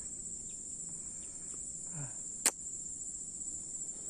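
Steady high-pitched insect chorus, cricket-like, with one sharp click about two and a half seconds in.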